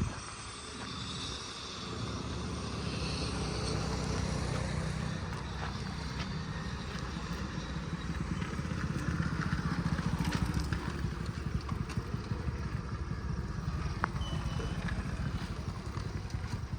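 Heavy-equipment diesel engine running steadily, with a few sharp knocks about ten and fourteen seconds in.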